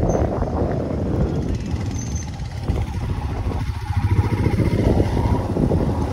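Motor vehicle running on the move: a steady low rumble of engine and road noise.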